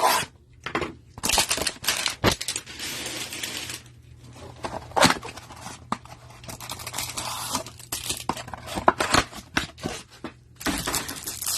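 Trading-card hanger box being torn open and its contents handled: cardboard tearing and wrapper crinkling, broken by quick clicks and taps, with a longer stretch of rustling tearing about two to four seconds in.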